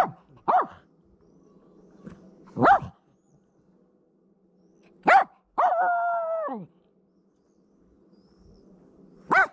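A dog barking: single sharp barks a couple of seconds apart, with one longer drawn-out call about six seconds in that drops in pitch as it ends.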